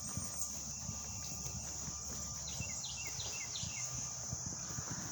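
Steady high-pitched insect chorus, with a bird giving about four short falling chirps about two and a half seconds in, over a low rumble.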